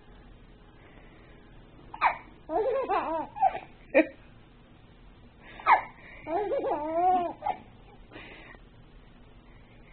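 A baby hiccups twice, and each hiccup sets off about a second of laughter from a small child.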